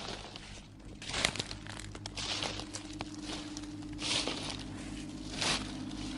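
Horror sound-effect ambience: irregular crunching, rustling noises over a low steady drone that grows stronger about a second in.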